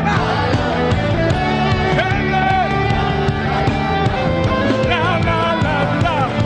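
Music: a full-band song with a melody line that slides between notes over a dense, steady backing.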